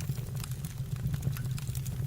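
Wood fire burning in a fireplace: a steady low rumble of flames with scattered small crackles and pops from the burning logs.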